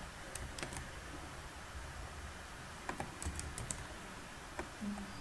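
Computer keyboard keystrokes: a few separate clicks, then a quick run of several keys about three seconds in.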